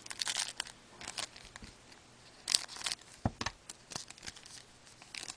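Trading cards and their foil pack wrapping being handled: irregular short bursts of rustling, crinkling and scraping.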